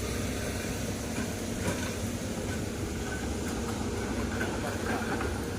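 Heavy diesel engine of a hydraulic excavator running steadily at work during a ditch recovery.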